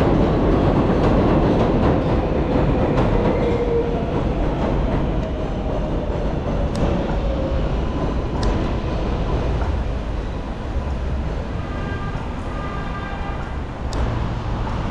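Elevated subway train on the 7 line's steel el structure overhead: a loud rumble with a faint whine that drops slightly in pitch, fading away over the first several seconds into street traffic noise.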